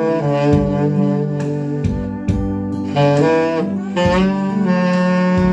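Tenor saxophone playing a slow melody of held notes, ending on a long sustained note, over a backing accompaniment with a steady drum beat.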